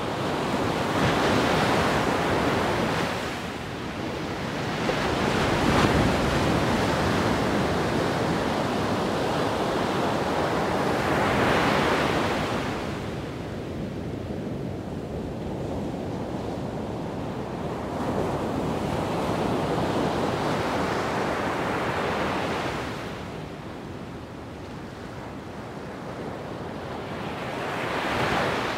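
Wind gusting across the microphone: a rushing noise that swells and eases in uneven surges every few seconds.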